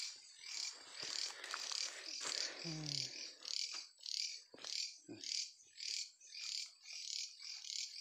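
High-pitched chirping that repeats evenly about twice a second, from a night-time chirping animal. A short low grunt sounds about three seconds in, and a few soft knocks follow around five seconds.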